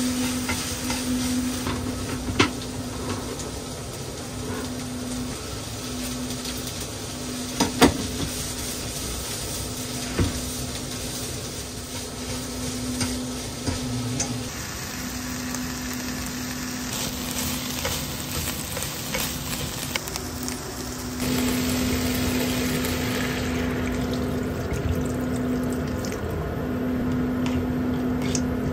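Onion, carrot and pork sizzling as they stir-fry in a frying pan over a portable gas burner, turned with chopsticks that now and then knock sharply on the pan. A steady low hum runs underneath.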